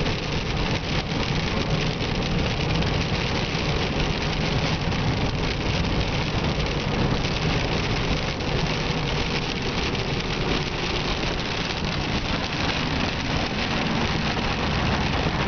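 Steady rumble of a car driving on a wet road, heard from inside the cabin: engine and tyre noise with a hiss of rain.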